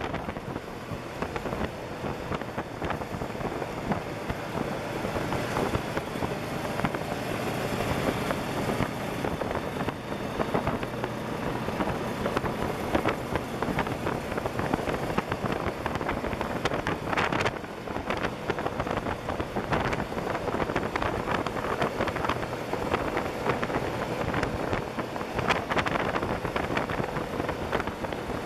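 Vehicles driving on a gravel road: a steady engine drone with tyre and gravel noise, and wind buffeting the microphone.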